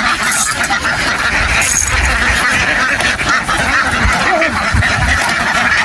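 A large flock of domestic ducks quacking all together, many calls overlapping without a break.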